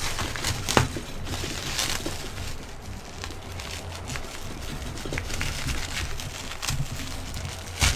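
Loud scraping and crackling of an old, rusty blade cutting through packaging, with irregular sharp clicks; the loudest comes near the end.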